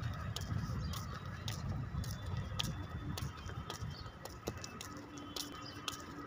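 Outdoor background noise: a low, uneven rumble that eases after about three seconds, with scattered short, sharp clicks throughout.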